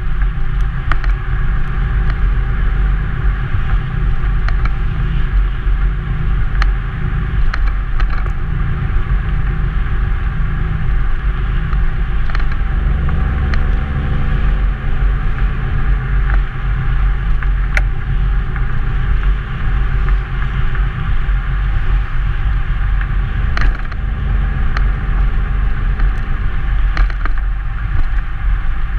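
2002 Nissan Maxima's 3.5-litre V6 exhaust running steadily, a deep low drone heard from a camera mounted on the car. The pitch shifts briefly about halfway through as the revs change.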